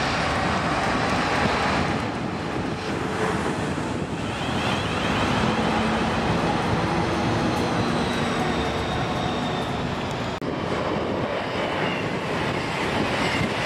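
Trains running through a station at speed: the rushing wheel and air noise of an SWR Class 450 Desiro electric unit passing close by, alongside a Freightliner Class 59 freight train. A sudden cut a little past the middle is followed by a CrossCountry Voyager diesel unit passing.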